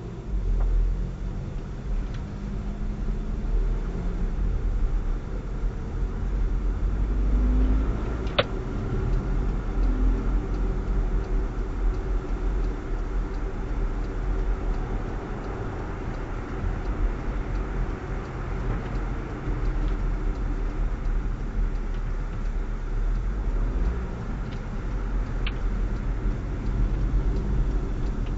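Car driving, picked up inside the cabin by the mirror dash cam's microphone: a steady low road and engine rumble. A sharp click comes about eight seconds in, and another about three seconds before the end.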